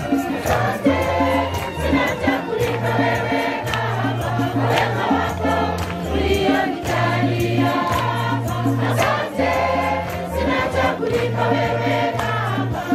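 Gospel-style music: a choir singing over a steady bass line and a regular beat of percussion.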